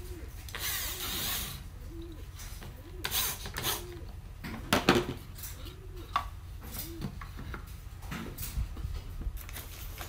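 A corded electric drill briefly runs a bit into a wooden disc for about a second, then a series of sharp wooden knocks and clatter as the wooden toy is handled on the workbench, the loudest knocks about five seconds in.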